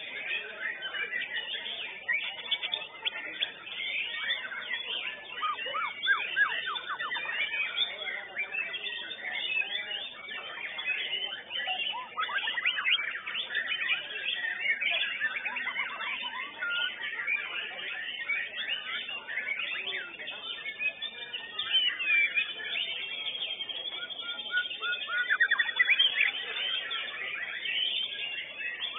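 White-rumped shamas (murai batu) singing in contest cages, several birds overlapping in an unbroken stream of whistles, rapid trills and chattering phrases, with bursts of fast trilling now and then.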